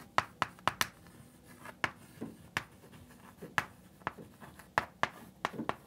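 Chalk writing on a chalkboard: a string of short, sharp, irregularly spaced taps and scrapes as words are written out.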